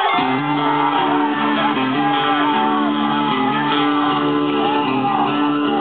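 Music starts up suddenly and plays on with steady held notes, while a crowd keeps shouting over it.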